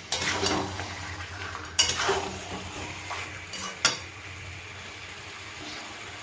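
A cooking utensil scraping and knocking against a kadai while chicken and potatoes are stirred and fried in thick masala (kosha). There are a few sharp clinks in the first four seconds, then quieter scraping and frying.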